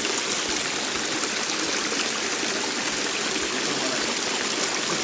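Shallow stream running over flat rock ledges: a steady rush and trickle of water.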